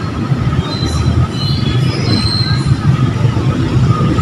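Outdoor background noise: a steady low rumble with a few short, high-pitched tones above it.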